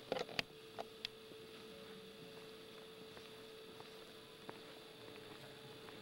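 A steady faint hum on one pitch, with a quick cluster of sharp clicks and knocks in the first second and one more faint click a few seconds later.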